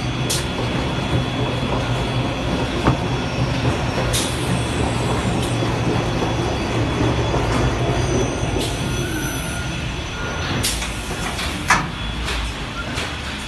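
EDDA Spinner 1500 S orbital stretch wrapper running: its rotating ring and conveyor give a steady mechanical rumble and hum as stretch film is wound around a cabinet box. A few sharp clicks break through, one about three seconds in and the loudest near the end.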